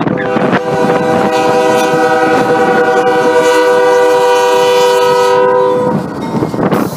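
Freight locomotive's multi-chime air horn sounding one long chord of about five seconds, stopping about six seconds in, over the rumble of a passing freight train.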